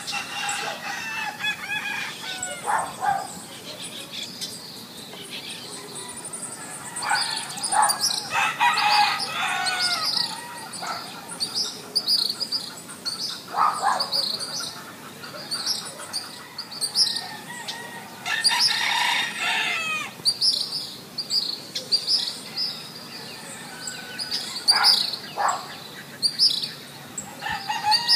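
A rooster crowing, with two long crows about a third of the way in and past the middle and shorter calls between, over the steady high chirping of small birds.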